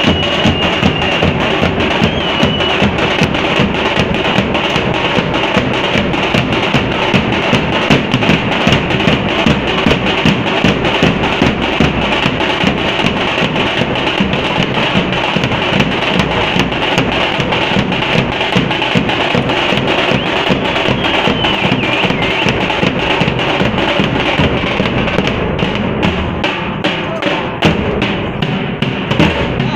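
A troupe of drummers beating large drums with sticks in a fast, loud, unbroken rhythm; after about 25 seconds the individual strokes stand out more sharply.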